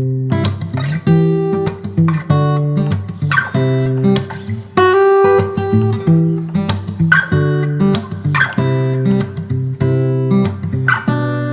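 Background music of strummed acoustic guitar, its chords re-struck about once a second.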